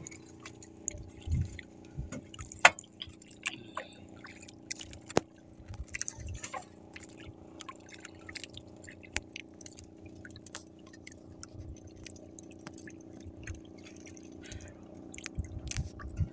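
Water lapping and trickling around a small wooden outrigger boat, with scattered light clicks and knocks as a squid handline is hauled in by hand, over a faint steady hum.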